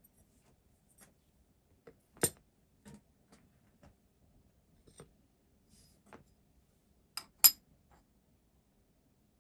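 Scattered light clicks and clinks of steel locomotive frame parts being handled on a milling machine table, with a sharper metallic knock a little over two seconds in. The loudest sounds are two sharp knocks close together about seven seconds in, as the steel pony truck bolster plate is laid on the frames.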